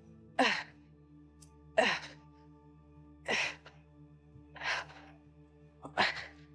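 A woman's forceful breaths with each knee raise, five sharp exhales about one every second and a half, the first two sliding down in pitch into a short grunt.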